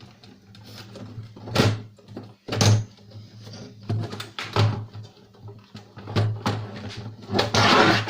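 Hands disassembling a DVD player's casing: a series of separate knocks and clicks, then a longer scraping rattle near the end.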